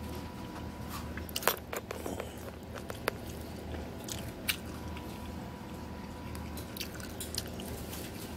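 Mouth sounds of someone eating: scattered short clicks and smacks of chewing over a steady low hum.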